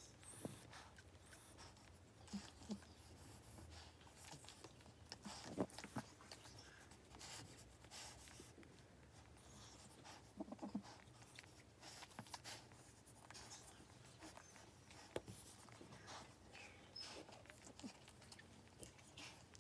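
Faint, irregular licking and rustling from a Boston Terrier mother cleaning her newborn puppy, with scattered small clicks.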